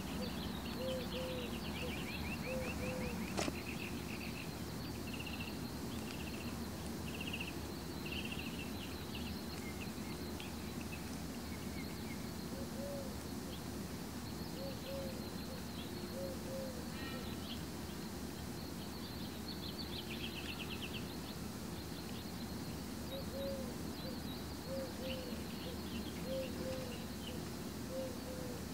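Outdoor birdsong: short low cooing notes in twos and threes, repeating every few seconds, with higher chirps and trills from small birds over a steady low hum. A single sharp click sounds about three seconds in.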